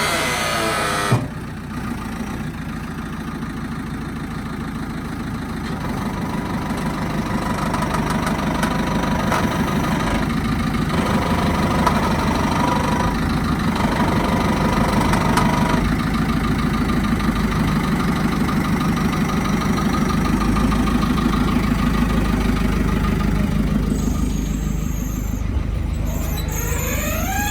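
JCB 3CX backhoe loader's diesel engine: a rev cuts off with a click about a second in, then the engine idles steadily, and it revs up again near the end.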